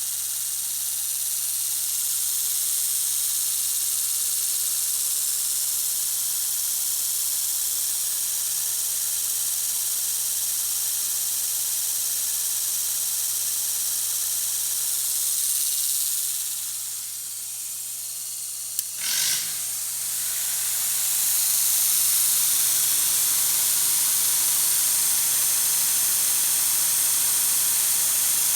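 Lincoln SA-200 welder running steadily under a strong hiss. About two-thirds of the way through there is a short knock, and the running note shifts to a different pitch.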